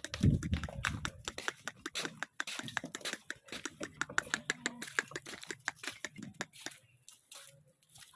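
Rapid, irregular clicks and crackles from goats, thinning out near the end, with a brief low rumble at the start.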